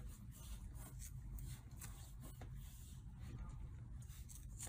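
Faint scraping and light taps of a kitten batting a small plastic bottle cap about on a tile floor, over a low steady room hum.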